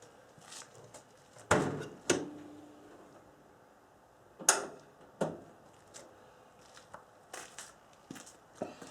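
Clunks and clicks from the 1964 Corvair's rear engine lid being opened and handled. The loudest strokes come in two pairs, the second of the first pair followed by a brief metallic ring, with a few fainter clicks after.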